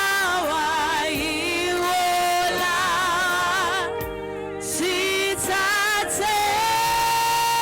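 Gospel singing in a church service: a voice holding long, wavering notes over steady sustained accompaniment, with a short pause about four seconds in.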